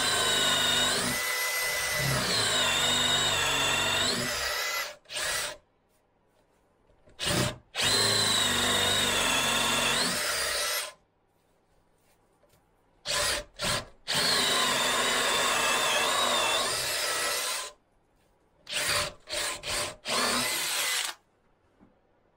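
DeWalt cordless drill boring a large hole in a softwood beam with a big wood bit, run in several bursts a few seconds long, the motor's pitch rising and falling with the trigger and the load. Near the end it gives a few short blips, with silent pauses between the runs.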